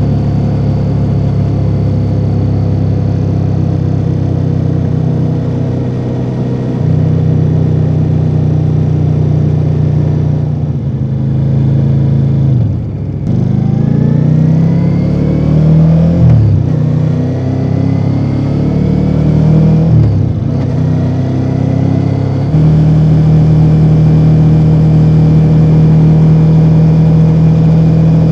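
A 2024 Ducati Multistrada V4 Rally's 1158 cc V4 engine through its stock exhaust, ridden at a steady speed, then eased off about twelve seconds in. It pulls up through the gears, pitch rising and dropping at two upshifts, then settles into a steady, louder cruise.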